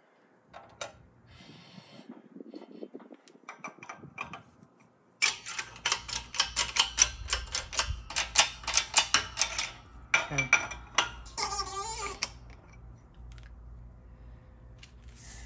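A steel transmission sun gear handled on the steel plates of a shop press, clicking and rattling against the metal. The clicking builds to a dense run of sharp clicks about a third of the way in, and a short scrape comes near the end.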